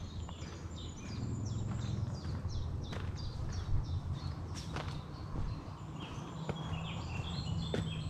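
Woodland songbird singing: a quick run of short, falling high notes through the first half, and another burst near the end. Footsteps on a forest path fall now and then underneath.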